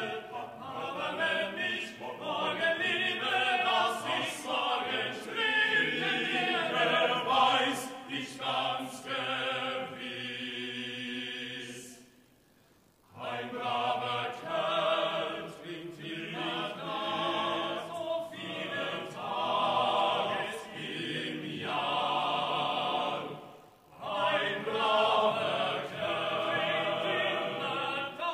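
Male choir singing a drinking song a cappella, the parts moving in harmony. The singing breaks off briefly twice, about twelve seconds in and again about twenty-four seconds in.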